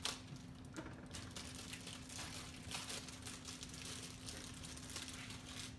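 Faint clicks, taps and crinkling as a small cardboard blind box is handled and opened and the mini figure taken out.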